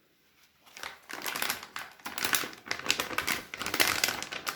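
Packaging crinkling and rustling as a tightly packed graphics card is worked out of its wrapping, starting about a second in.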